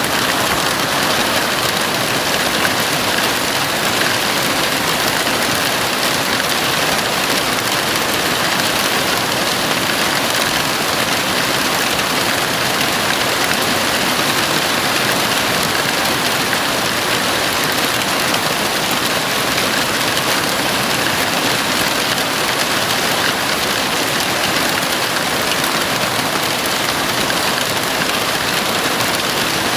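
Heavy rain falling on a house roof, a dense, steady hiss with no let-up.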